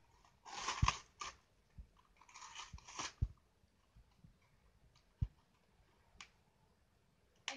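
Clear plastic toy packaging crinkling as it is handled and pulled at, in two bursts about half a second and two and a half seconds in, followed by a few faint taps and ticks while it is worked open.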